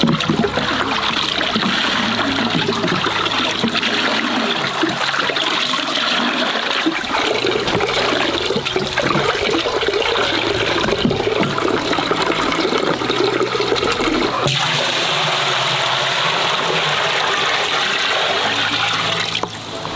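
Water running and splashing steadily, with a brief break about fourteen seconds in.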